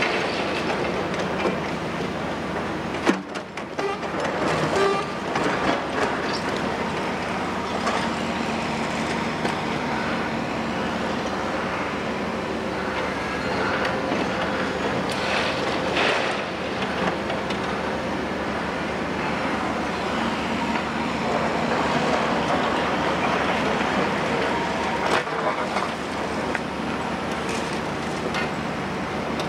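Cat 352F excavator's 15.2-litre Cat C15 ACERT diesel engine running under load while it loads demolition rubble into a dump truck. Rubble crashes and clatters into the steel truck bed, the loudest impact about three seconds in, with more knocks around the middle and near the end.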